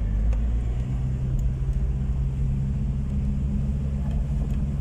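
A motor vehicle running steadily: a low rumble with a steady engine hum.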